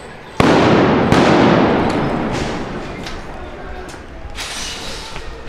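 Two loud explosions about a second apart, the first a little under half a second in, each echoing and dying away over a couple of seconds. A few fainter cracks follow, and a brief hiss comes near the end.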